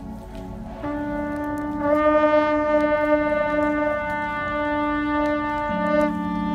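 Ceremonial horns blowing several long, steady, overlapping notes: one sounds about a second in, a higher one joins about a second later, and a lower note comes in near the end.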